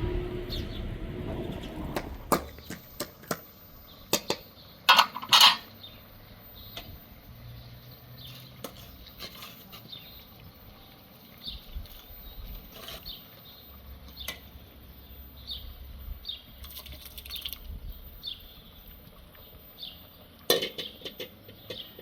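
Scattered sharp clicks and knocks, the loudest two close together about five seconds in and another cluster near the end, with a low rumble in the first couple of seconds.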